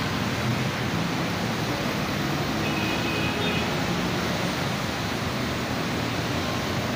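Steady hiss of heavy rain falling on the road, mixed with the wash of vehicles driving over wet tarmac.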